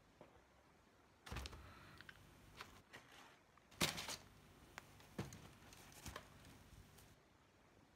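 Handling sounds as a pair of Air Jordan Legacy 312 Low sneakers is moved about in a cardboard shoebox lined with tissue paper: paper crinkling and light knocks against the box, in a few short bursts, loudest about four seconds in.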